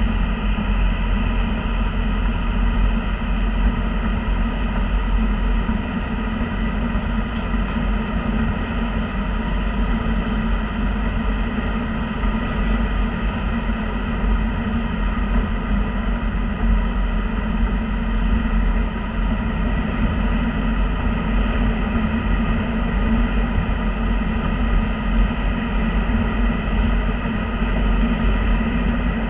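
Steady road and engine noise inside a car's cabin while cruising on a highway, a constant low rumble with no breaks.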